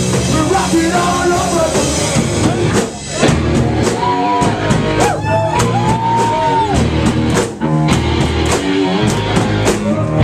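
Live rock band playing loud: a singer holding long notes over guitar and a drum kit. The band stops briefly twice, about three seconds in and near eight seconds.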